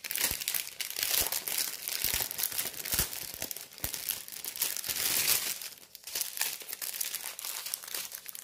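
Clear plastic packaging of a diamond-painting kit crinkling as it is handled: a dense crackle with many small clicks, easing off for moments now and then.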